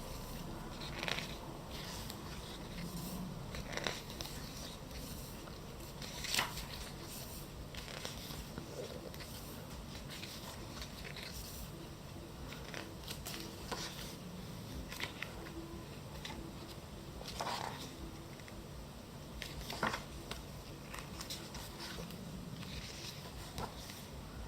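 Pages of a thick photobook being turned by hand: brief paper swishes and flicks every few seconds over a low steady hum.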